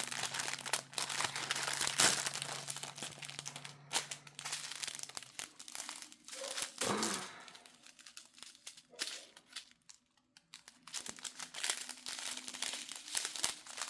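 Plastic packets of diamond-painting drills crinkling as they are handled and opened, an irregular run of crackles and rustles that eases off for a few seconds about two-thirds of the way through.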